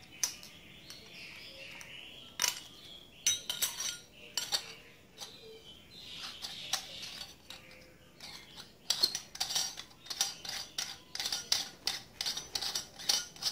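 Stainless steel kitchen faucet's mounting parts being handled and screwed onto its base: scattered metal clinks and clicks, with some soft rustling. The clicks come quicker and closer together over the last few seconds.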